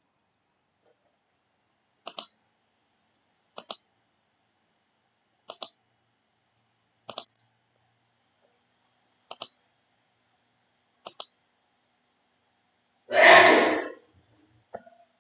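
Computer mouse clicked in quick pairs, six times at even spacing. Near the end comes a louder, short rush of noise, then one faint click.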